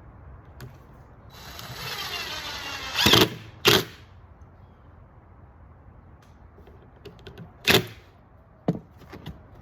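Power drill driving a screw straight into a deck board without a pilot hole: the motor runs for about two seconds, followed by several sharp knocks.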